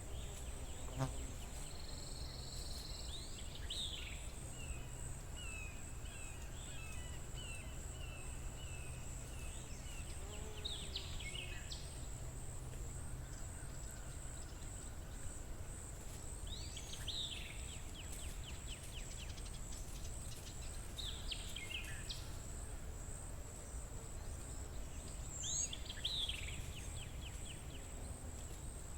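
Forest ambience: a steady high-pitched insect trill, with birds calling on and off in short falling notes and a chattering run, over a low steady rumble.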